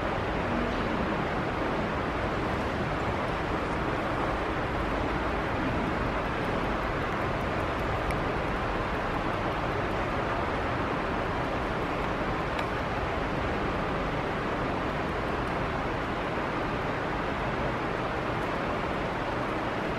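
Steady, even background noise of a hall during a silent pause, with no distinct events apart from a couple of faint ticks.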